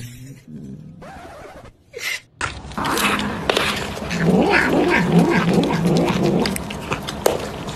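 Domestic tabby cat yowling and growling while a toothbrush is worked in its mouth, starting about two and a half seconds in and running loud and wavering for about five seconds.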